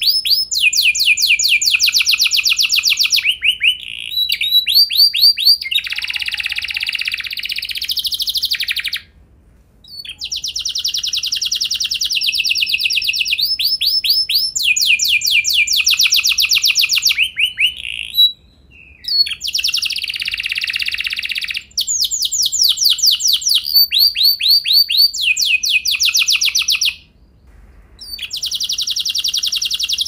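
Domestic canary singing a long song made of runs of fast, rapidly repeated notes, one rolling trill after another, broken by three brief pauses.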